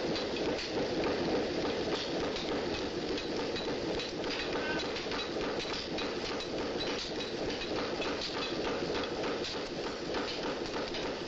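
Blacksmith's forge at work: a steady rushing noise with rapid, irregular knocking and clattering throughout.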